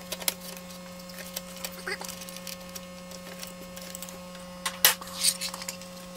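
Light clicks and rattles of a circuit board and wire connectors being handled inside a Numark PT01 Scratch portable turntable's plastic case, with a few louder clicks about five seconds in. A steady low hum runs underneath.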